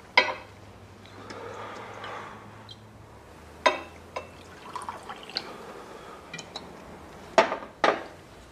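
Liquor being poured from glass bottles into a tumbler, with sharp clinks of glass bottles and the tumbler knocking on a bar counter: one loud clink right at the start, another a little over a third of the way in, and two close together near the end.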